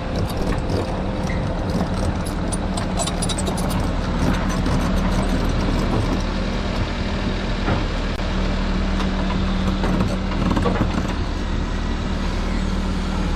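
An engine running steadily with a low hum, with light clicks and rattles over it.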